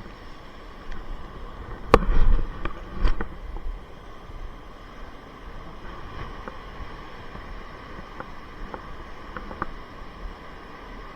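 Wind rumbling on the microphone, with a sharp knock about two seconds in followed by a few smaller knocks and scattered faint clicks.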